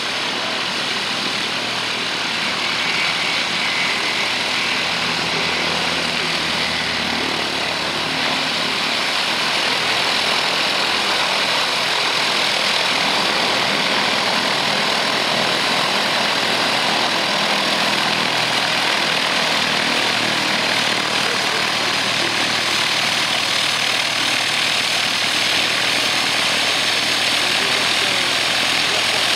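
Cessna 172's single piston engine and propeller running at low taxi power, a steady drone that grows a little louder during the first ten seconds or so as the plane comes closer.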